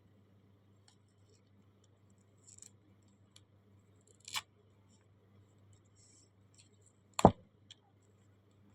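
Packaging being handled and opened: faint rustles and small clicks, then one sharp knock about seven seconds in, over a faint steady hum.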